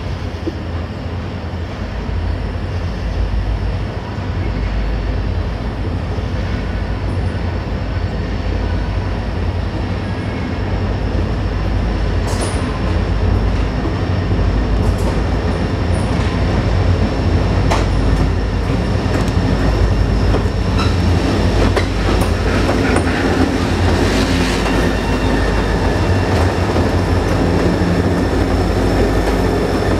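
Four EMD SD40-2 diesel locomotives with 16-cylinder two-stroke engines approaching and drawing alongside at the head of a loaded coal train. Their steady heavy rumble grows louder as they near. From about halfway on, sharp clicks come from the wheels crossing the joints of the jointed rail on the steel trestle.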